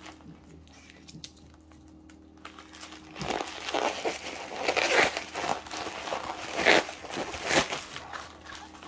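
Plastic mailer envelopes crinkling and rustling as they are handled and pulled out of a cardboard shipping box. It starts about three seconds in, in irregular bursts with the loudest crinkles near the end.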